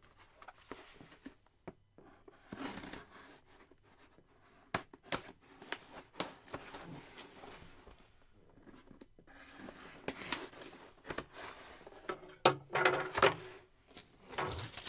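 Packing tape on a cardboard box being slit with a knife blade, with short scrapes and clicks of cardboard, and a louder stretch of cardboard and packing rustle near the end as the lid is lifted open.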